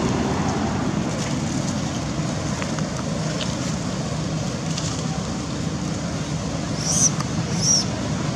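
Two short high-pitched squeals from a baby macaque near the end, over a steady low background rumble.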